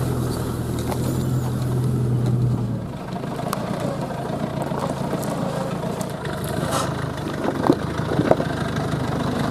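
Land Rover Discovery 4x4 engine running at low speed as it crawls over rough ground. The steady engine note drops about three seconds in, and scattered knocks and scrapes from rocks and brush against the vehicle follow.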